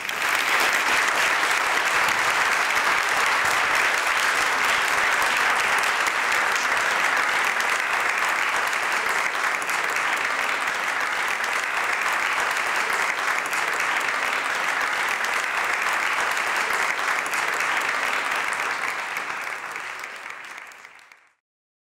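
Audience applauding: steady, dense clapping that tapers off and then stops abruptly near the end.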